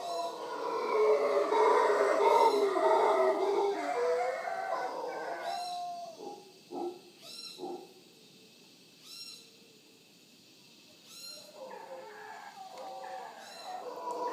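Mantled howler monkeys howling. A loud chorus of deep, rough roars fills the first five seconds or so, then come a few short grunts and a lull, and the roaring starts up again near the end.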